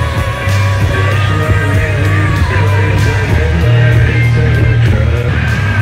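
Loud rock music with a steady drum beat, a heavy bassline and a singing voice.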